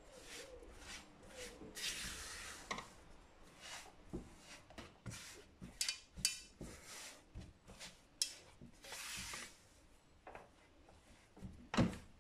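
Red silicone spatula stirring and scraping a thick, crumbly gur papdi mixture of wheat flour, ghee and jaggery around a nonstick kadai in repeated short strokes. A few sharper knocks of the spatula against the pan come through, the loudest near the end.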